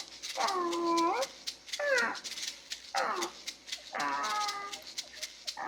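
A cat meowing over and over, about one call a second, each call a short pitched mew that bends in pitch.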